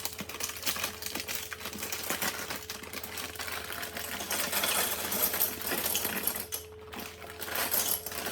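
Dry pasta pouring from its package into the pan, many small pieces clattering and rattling, with a brief lull near the end.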